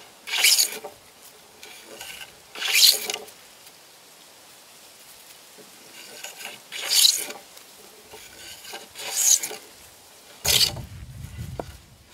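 Wooden hand plane shaving along a timber beam, five quick strokes roughly two seconds apart, each a short rasping hiss as a long shaving peels off. A low rumble comes in near the end.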